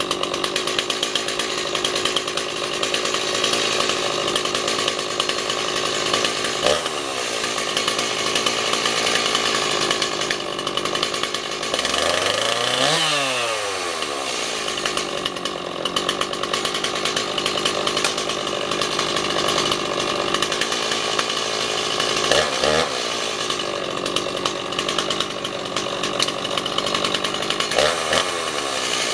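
Stihl MS260 two-stroke chainsaw engine running steadily, its pitch dipping and coming back up four times, most deeply about halfway through, as the throttle is let off and opened again. It runs well after starting right up.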